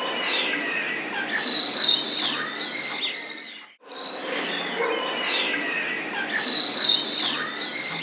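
Mixed forest birdsong: many birds chirping and calling at once. The same stretch of about five seconds plays twice, with a brief break in the middle. Each pass holds a sharp high whistle, its loudest call.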